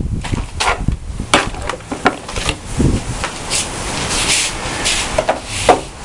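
Strong storm wind gusting, with hissing rushes and many irregular knocks and rattles.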